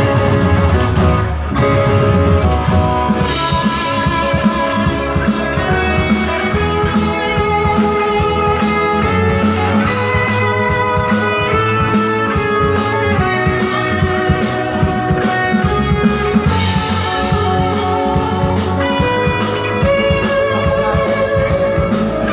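Live band playing in a bar: keyboard, with a drum kit keeping a steady beat.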